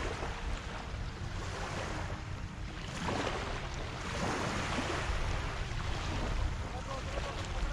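Wind buffeting the microphone over small waves lapping the shoreline, with the noise swelling about three seconds in and again a second later.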